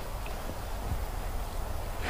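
A few soft footsteps on dirt over a steady low rumble.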